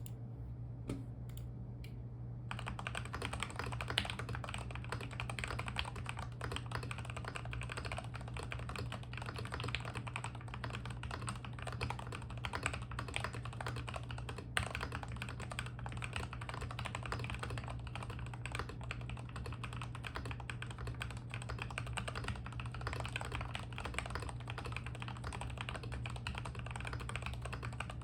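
Typing on a tenkeyless mechanical keyboard with Gateron Milky Yellow Pro linear switches lubed with Krytox 205g0, a tape-modded PCB, a foam-filled case and XDA-profile keycaps. A few separate keystrokes come first, then fast continuous typing from about two and a half seconds in, over a steady low hum.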